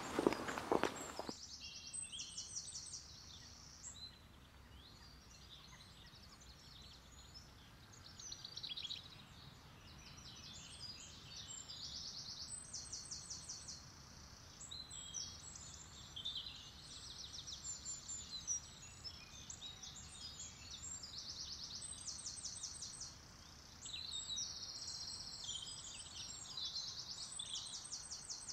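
Songbirds singing: repeated high trills and chirps with short gaps, over a faint low hum. A louder noise stops about a second in.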